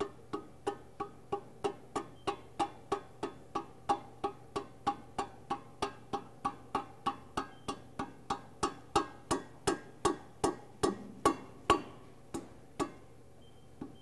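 Rubber mallet tapping a flanged bushing along the vacuum pump's keyed shaft into the hub of its spoked pulley: a steady run of light blows, about three a second, each with a short metallic ring. The blows grow slightly harder, then slow to a few last taps near the end.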